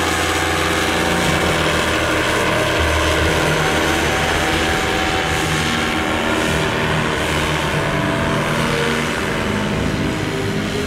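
Paramotor engine and propeller droning steadily as the paraglider flies, easing slightly near the end.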